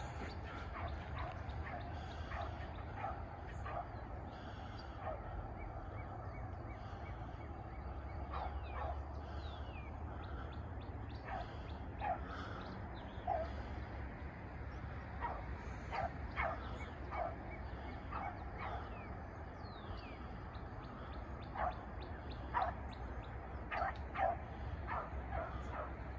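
A young beagle giving voice on a rabbit's trail: short, irregular barks and yips that come more often from about a third of the way in, over a steady low rumble.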